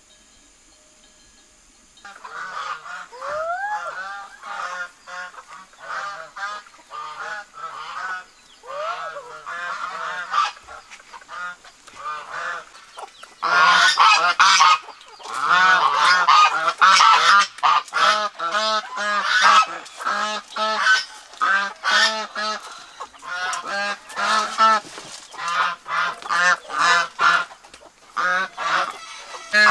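A flock of domestic geese honking over and over. The calls start about two seconds in and turn louder and more crowded about halfway through.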